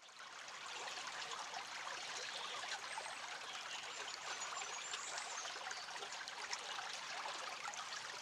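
Shallow stream running over a gravel bed: a steady trickling babble of many small splashes.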